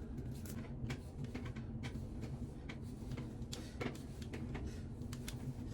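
Scattered light clicks and taps at irregular intervals over a low steady hum.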